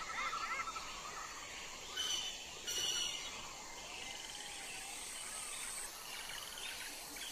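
Tropical forest ambience: birds calling and chirping, with two short louder calls about two and three seconds in, a fast chirping trill from about four seconds, and a thin high insect buzz near the middle.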